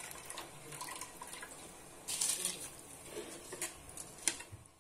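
Pot of water at a rolling boil with whole spices, bubbling steadily, with a louder rush about two seconds in and a few sharp clicks near the end.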